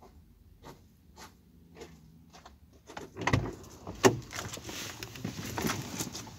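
Footsteps crunching on gravel, about one every half second or so, as someone walks up to the car; then, about three seconds in, a car door is worked with a heavy thump and a sharp click, followed by rustling and knocks as someone gets in.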